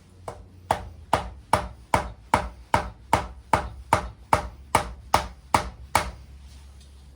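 A hammer striking a block of wood set against a seized piston of a Kubota V2203 diesel, about fifteen steady blows at roughly two and a half a second, driving the stuck piston to free the engine.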